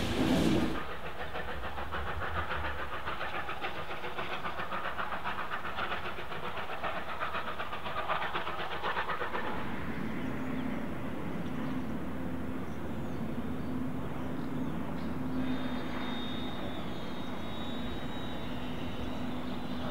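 A train running in the distance across a rail yard: a fast, even rattle for the first half, then a steady low hum, with a faint high tone coming in during the last few seconds.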